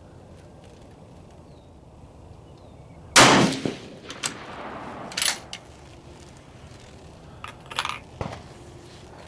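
A single rifle shot from the Gruning Precision rifle about three seconds in, with a short trailing echo. Several shorter, quieter clicks and clacks follow over the next five seconds.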